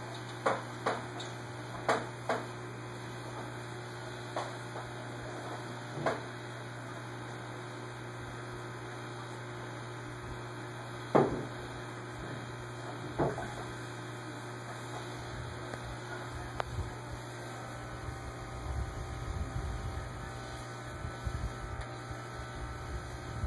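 Steady hum of an aquarium filter pump, with about eight sharp knocks scattered through the first half and low uneven rumbling near the end.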